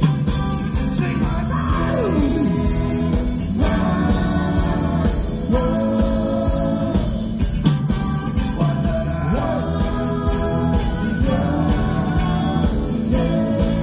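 Live rock band playing: electric guitars, bass and drums, with a singer's voice over them.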